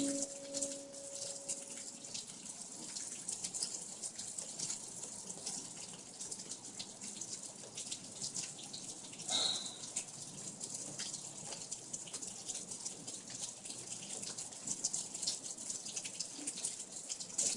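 Steady rain falling and dripping, a dense patter of small drops. The last guitar chord rings away over the first couple of seconds, and a brief pitched sound stands out about halfway through.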